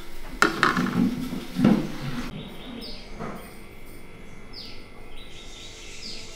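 A few knocks and clinks of a metal spatula against plates as the parottas are set down, loudest in the first two seconds. After that it goes quieter, with a few short, faint high chirps that fall in pitch.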